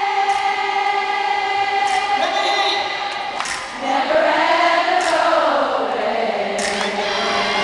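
Live pop vocals at an arena concert: voices hold long notes and slide slowly through a melody, sounding like a choir.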